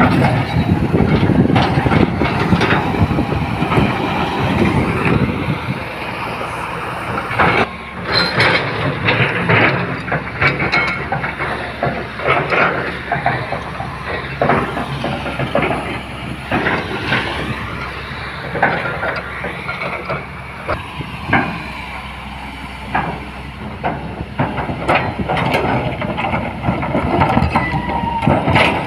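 Hitachi UH10 hydraulic excavator running under test, a steady engine drone with hiss and irregular metallic clanks and knocks throughout.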